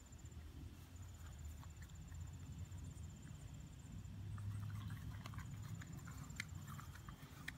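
Quiet outdoor ambience: a thin, high trill that comes and goes over a low, steady rumble, with a few faint ticks near the end.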